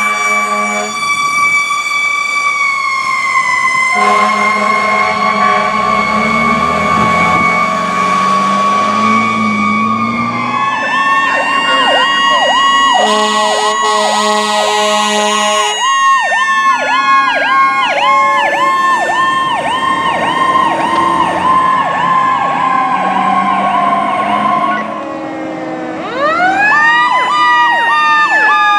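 Pierce fire trucks' sirens and air horns on an emergency response: sirens wailing with slow falling glides, then switching to a fast repeating warble of about one and a half cycles a second. Long air horn blasts sound over them near the start, from about 4 to 10 seconds in, and again around 13 to 16 seconds in. After a brief drop in level near the end, a siren winds up again with a rising glide.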